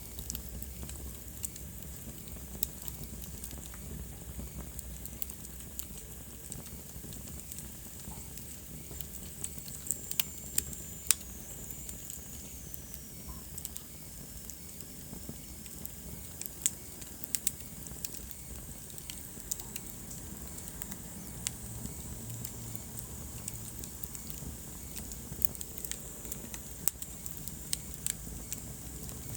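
Wood fire burning in a fireplace: a steady low rumble with scattered sharp crackles and pops. About ten seconds in, a faint high whistle slides downward over a few seconds.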